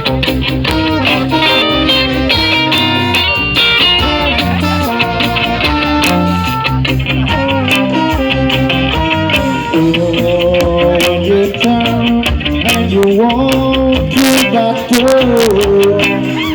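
Music: a guitar-led song with bass and drums, with a voice singing in the later part.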